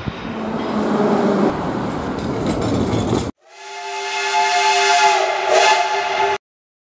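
A business jet's engines running as it rolls on the runway, a steady noise without a clear pitch. After a brief cut, a steam locomotive's whistle sounds several steady pitches at once over the hiss of escaping steam for about three seconds, then stops abruptly.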